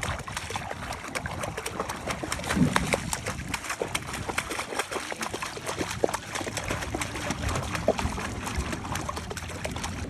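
Water splashing and trickling in a dense run of small drips and splashes.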